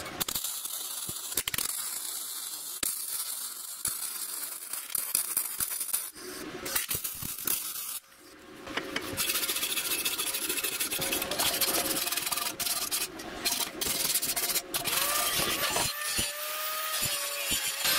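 MIG welder arc on thin sheet steel, a steady crackling hiss as a small bracket is welded to a panel. About three seconds before the end, an angle grinder spins up and runs with a steady whine.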